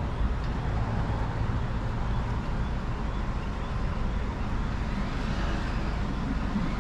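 Wind buffeting the microphone as a steady, flickering low rumble, over a faint background of street and traffic noise.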